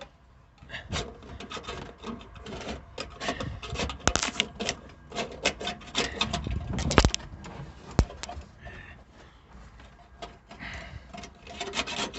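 Bare copper ground wire from Romex being pushed and worked through a hole inside the pickup's sheet-metal B-pillar, scraping and clicking against the metal in irregular bursts, with a sharp click about eight seconds in.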